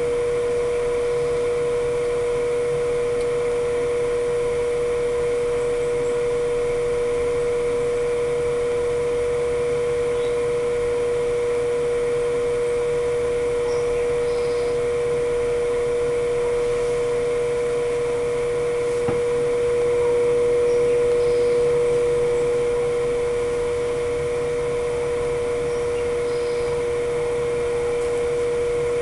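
Egg incubator's fan motor running, a steady hum with one strong, constant pitch.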